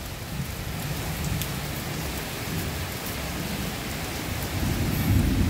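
Steady rain pouring down on a paved lane and the surrounding roofs, a continuous even hiss. A low rumble swells under it near the end.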